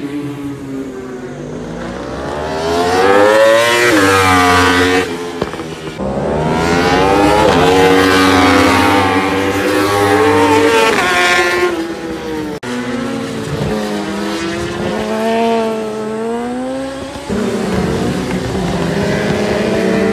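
Racing superbikes passing one after another, their engines rising in pitch as they accelerate up through the gears and dropping as they brake and downshift for the corners.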